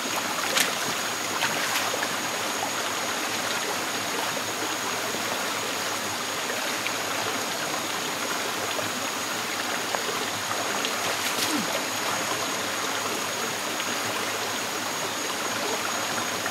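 Shallow rocky creek flowing steadily, with a few brief splashes or knocks as hands grope among the stones in the water.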